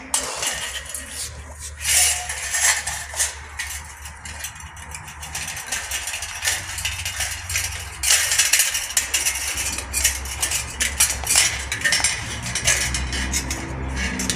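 Notched sheet-steel drywall U track being flexed and bent by hand, its cut tabs clinking and rattling against each other in irregular metallic clinks. The clinks are sparse about four to six seconds in and come thick and fast in the second half.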